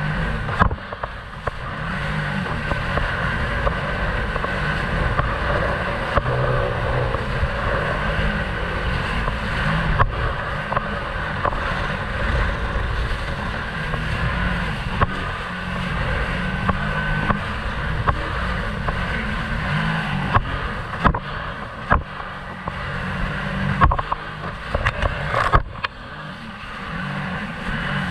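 Jet ski engine running steadily at cruising speed, with water rushing and spraying off the hull. Several sharp knocks come as the hull hits the chop.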